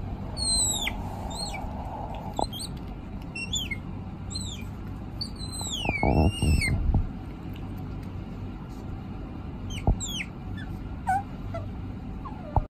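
A small animal's high-pitched calls: a string of short downward-gliding squeaks, with one longer wavering call about six seconds in, over a steady background hiss and rumble. A low thud comes with the long call.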